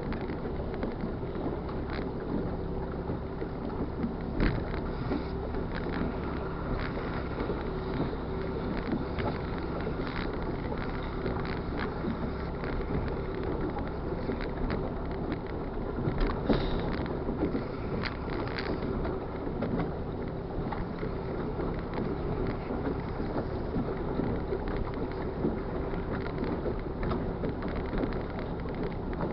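Motorboat engine running steadily under way, a constant hum under the rush of wind and water, with occasional light knocks.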